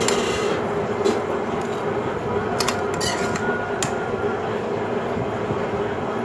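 A ladle stirring soup in an open metal pressure cooker, with a few light metal clinks against the pot, over a steady rumbling hum.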